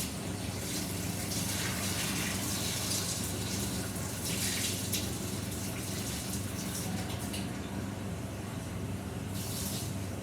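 Hot water running steadily from a kitchen tap into a baking pan, filling it as a water bath around the mug.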